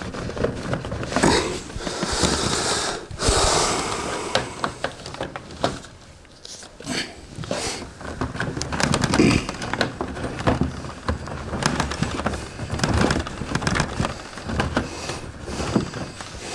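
Handling noise as network cables are worked by hand behind a game console and TV stand: irregular rustling, with scattered light clicks and knocks. The longest rustle comes about one to four seconds in.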